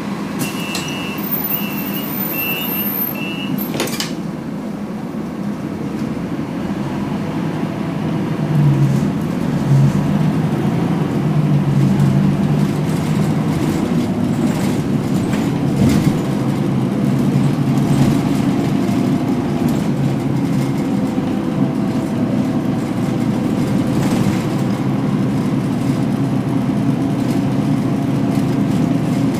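Inside a city bus pulling away from a stop: a short run of door-warning beeps, then a knock as the doors shut about four seconds in. The bus engine then runs under load as the bus gets going, louder from about eight seconds in.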